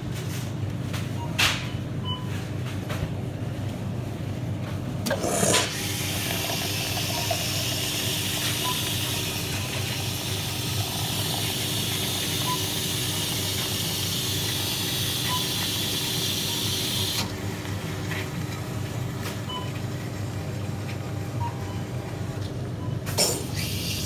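Costa Express self-serve coffee machine making a drink: a clunk about five seconds in, then a steady hiss over a low hum for about eleven seconds while coffee streams into the paper cup. The hiss then stops, the hum goes on, and another clunk comes near the end as milk starts to pour.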